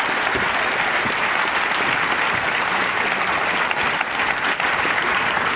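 Theatre audience applauding steadily to welcome a speaker who has just been introduced.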